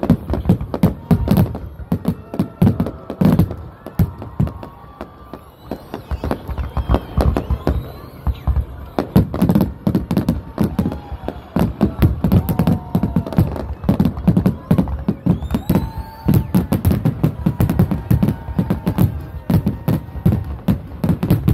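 Aerial fireworks display, with shells bursting in rapid succession: a dense, unbroken run of booms and bangs, several a second.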